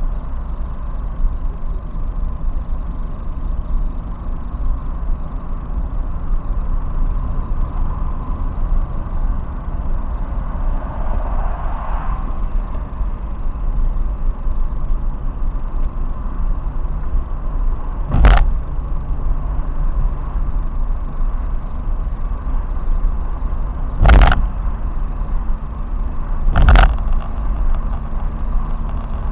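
Steady low road and engine rumble of a car cruising at speed, heard from inside the cabin. Three sharp knocks cut through in the second half, the last two a couple of seconds apart.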